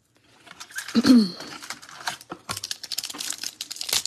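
Foil trading-card pack crinkling as it is taken from the box and torn open, a dense run of rapid crackles in the second half. About a second in, a short falling vocal sound.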